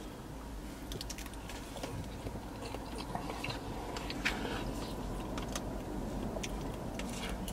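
Close-miked chewing: soft, irregular small clicks and mouth noises over a faint steady low hum.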